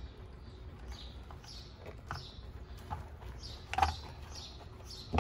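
Light handling of a singing fish's plastic mechanism and fabric skin: soft rustling and a few clicks, two of them louder late on. Behind it a bird chirps over and over, a short falling chirp a couple of times a second.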